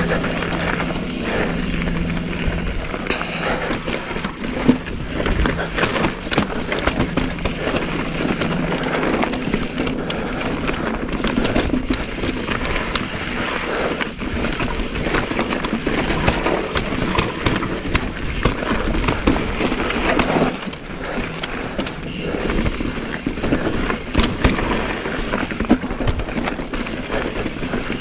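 Mountain bike descending a rocky trail: tyres rolling and crunching over loose rock, with a continuous rattle of small knocks and clicks from the bike.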